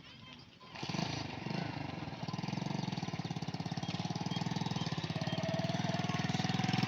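A small engine starts up about a second in and runs with a fast, even putter that grows louder.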